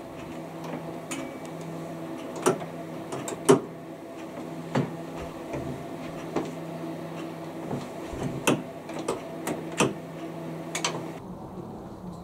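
Steady electrical and mechanical hum from a working model railway layout, with sharp clicks and knocks every second or so. The hum stops suddenly about eleven seconds in.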